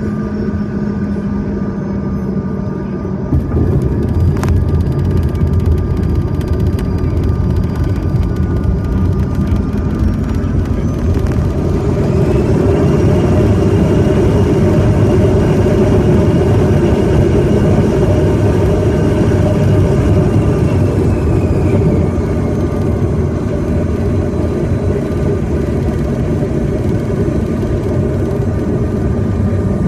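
Jet airliner's engines and runway roll heard from the cabin during the landing rollout. The low rumble jumps louder about three seconds in, and a high engine whine rises around the middle, then eases back off as the aircraft slows.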